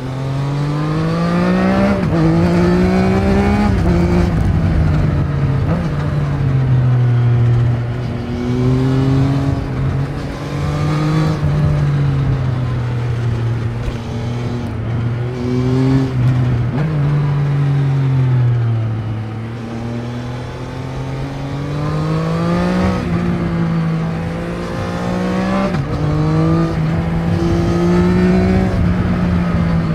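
Triumph Trident 660's inline three-cylinder engine on its stock exhaust, ridden through the gears: the note climbs under acceleration and drops sharply at each upshift, over and over, with a slower fall off the throttle near the middle.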